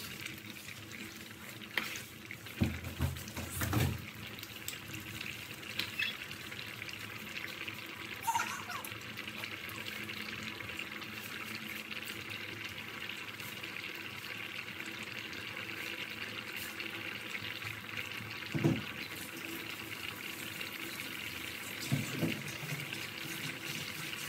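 Pot of korko soup boiling, a steady bubbling hiss, with a few knocks of the metal ladle against the pot about three seconds in and twice more near the end.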